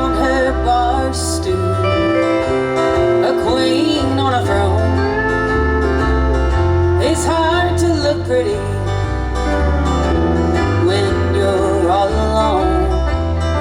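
Country band music with guitars over a steady bass line.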